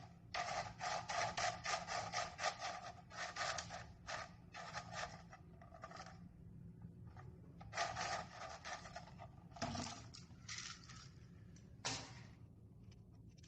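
Hard plastic objects handled and rubbed. Quick rubbing and scraping strokes come in several runs separated by pauses, with a few sharper knocks in the later part.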